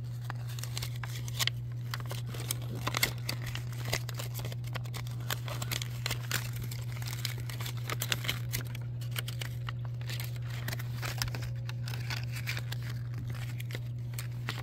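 Paper rustling and crinkling in irregular little clicks as a folded paper checklist is unfolded and handled, over a steady low hum.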